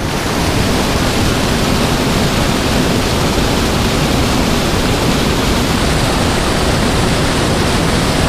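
Spillway outflow churning into the river: a steady, loud rush of white water.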